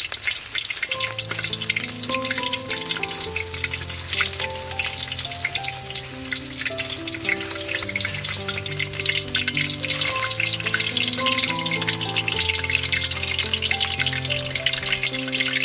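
Food frying in hot oil in a wok: a steady crackling sizzle, with soft melodic background music coming in about a second in.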